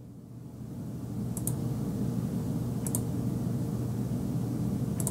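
Three short mouse-button clicks, each a quick press-and-release pair, spread a second and a half to two seconds apart over a steady low hum.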